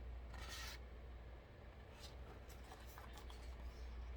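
Paper page of a picture book being turned: a brief swish about half a second in, then a few faint rustles, over a low steady hum.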